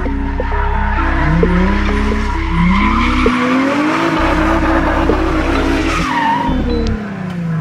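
Nissan 350Z drift car sliding with its rear tyres spinning and smoking: the engine revs up again and again in rising sweeps over a steady squeal and hiss from the tyres.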